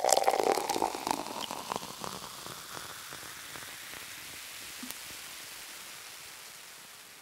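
Intro sound effect: a crackling, fizzing hiss of many tiny pops, loudest at the start and fading to a faint hiss over several seconds.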